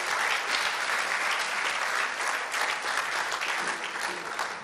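Audience applauding, a steady crackle of many hands clapping that tails off near the end.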